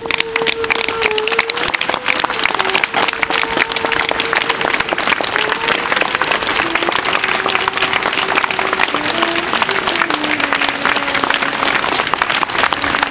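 Crowd applauding steadily while a saxophone plays a slow melody of long held notes over the clapping, the tune stepping lower about halfway through.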